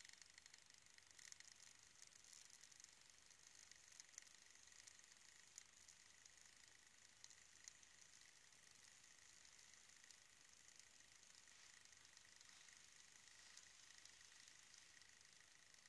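Faint, steady hiss of a homemade beer-can alcohol stove burning through its ring of side jets, with a few soft ticks.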